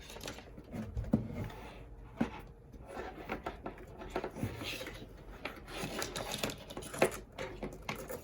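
Scattered light clicks and taps of computer parts and cables being handled and fitted inside a PC case, with a sharper knock about a second in, another a little over two seconds in and one about seven seconds in.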